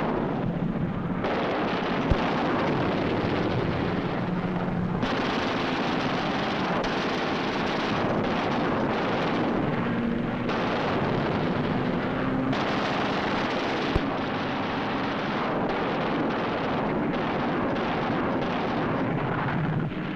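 WWII fighter aircraft engines droning under rapid machine-gun fire, a dense roar that changes abruptly several times. Two sharp cracks stand out, one about two seconds in and another near the fourteen-second mark.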